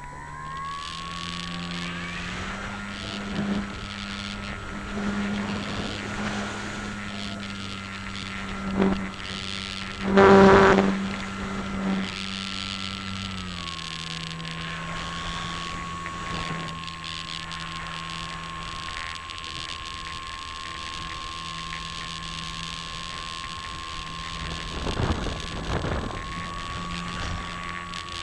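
Electric motor and propeller of a ParkZone Radian motor glider, heard from a camera on board: a steady whine that rises in pitch at the start, drops to a lower pitch about halfway through and rises slightly again near the end. Wind rushes over the microphone, with loud gusts about a third of the way in and again near the end.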